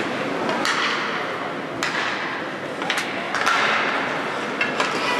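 Ice hockey sticks clacking sharply against the ice and puck, about six times, as youth players contest a faceoff and skate after the puck, over the steady echoing background noise of the ice rink. There is a scraping hiss of skates on ice partway through.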